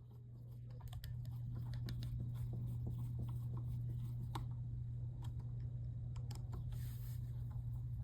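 Scattered light clicks and taps of a small sheet-metal door being fitted back over a light fixture's wiring cavity, over a steady low hum.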